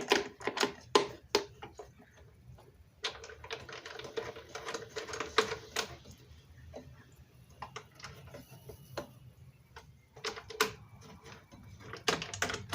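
Router table parts being handled and adjusted: a string of sharp clicks and knocks, with a busier rattling stretch a few seconds in.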